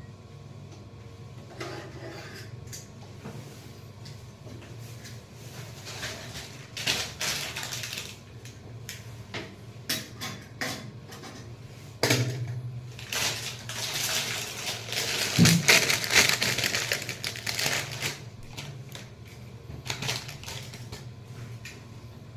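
Tools and metal parts being handled during repair work: irregular clicks, knocks and scraping, with a stretch of louder rasping scrapes about two-thirds of the way through, over a steady low hum.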